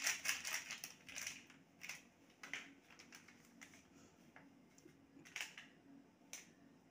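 A sachet crinkling as it is shaken and squeezed to empty powder into a steel mixer jar: a dense run of crinkles in the first second and a half, then a few scattered crinkles.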